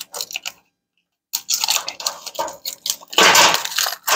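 Small parts of the manual preload adjuster kit clinking and its plastic blister packaging crackling as they are handled on a workbench, loudest near the end.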